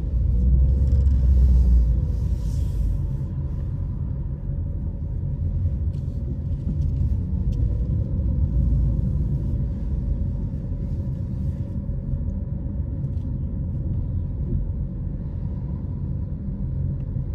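A car driving, its road and engine noise a steady low rumble, louder for the first couple of seconds.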